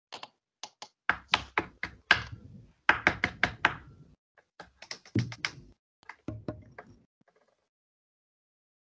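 Hand-made Foley knocks and taps: a quick, uneven run of sharp knocks and clicks, some in fast clusters, stopping about seven seconds in.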